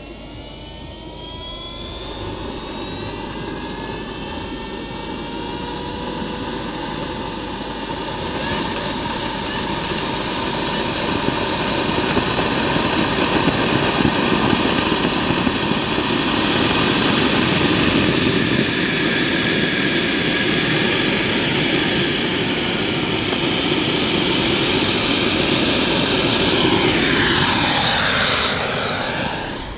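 A Kingtech K45 model jet turbine spooling up. It makes a whine that climbs steadily in pitch and grows louder over about the first twenty seconds over a rushing jet noise. It then holds at a steady high whine, and near the end the sound sweeps down in pitch.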